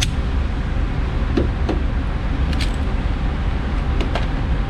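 Steady wind rumble on the microphone, with several short sharp cracks scattered through it, the sharpest at the very start.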